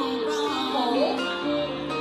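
Background music with a melody over plucked guitar, playing steadily.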